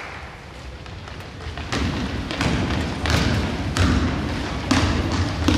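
Basketball thudding on a gym floor, several knocks well under a second apart starting about two seconds in, over the echoing murmur of a gym during play.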